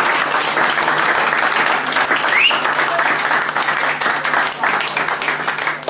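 A small audience applauding, the clapping thinning out near the end.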